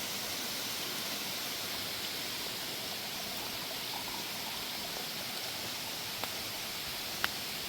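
Steady rushing of a waterfall or stream, an even hiss with no change, with a couple of faint sharp clicks in the second half.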